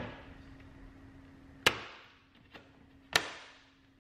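Black plastic fog light grill snapping into an Audi TTS's front bumper as it is pressed in by hand: three sharp clicks of its clips seating, about a second and a half apart.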